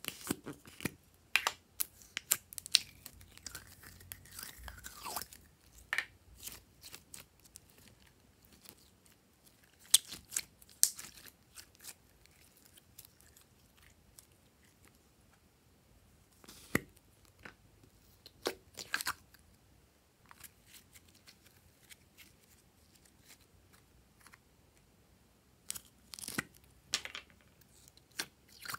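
Slime pulled by hand out of its plastic tubs, giving sticky pops, crackles and tearing squelches as it peels away from the container. The sounds come in clusters with quiet gaps between them.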